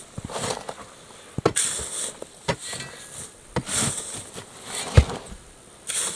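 A long-handled hand digging tool driven into packed earth in a narrow trench: dull strikes every second or so, the hardest about five seconds in, with loose soil hissing and scattering between them.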